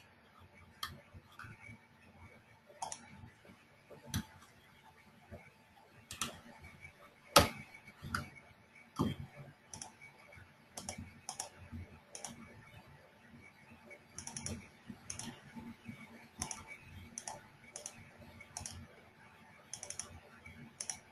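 Faint, irregular clicks and taps of a computer keyboard and mouse, scattered and unevenly spaced, with the sharpest click about seven seconds in.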